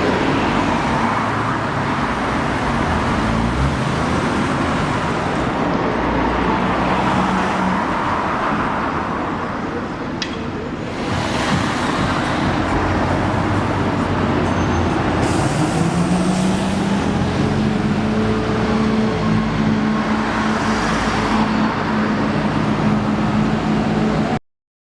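Road traffic: the steady noise of passing motor vehicles, with one engine's hum rising in pitch about fifteen seconds in and then holding steady. It cuts off abruptly just before the end.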